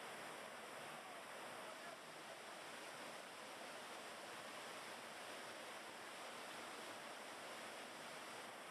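Waterfall and fast-flowing current rushing steadily, an even hiss of falling water.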